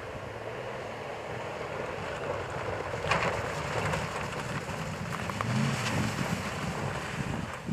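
Nissan Titan pickup's engine revving under load as the truck tries to climb snow in two-wheel drive. It gets louder and rises in pitch about five seconds in. The truck doesn't have the traction to make it in two-wheel drive.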